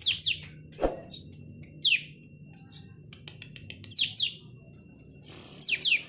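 Caged olive-winged bulbul (kapas tembak) calling in about four short bursts of quick, high, downward-sweeping notes, with small clicks in between.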